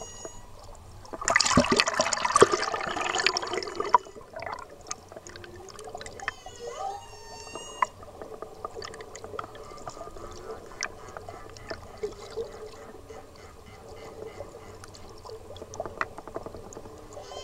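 Humpback whale song heard underwater: pitched, gliding calls, clearest about six to eight seconds in. A loud rush of water noise starts about a second in and lasts nearly three seconds, and faint scattered clicks sound throughout.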